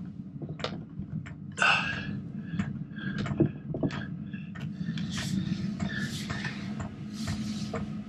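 Diesel air heater going through its start-up: a steady low hum from its fan, with scattered clicks and short knocks over it, ending with the heater lit.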